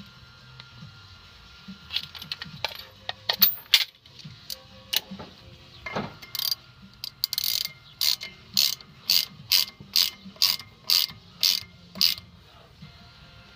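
Hand ratchet wrench worked in quick, even strokes, about two a second, after a few scattered clicks and knocks: a bolt being driven into the brake rotor's threaded jacking hole to press the rusted-on rotor off the hub.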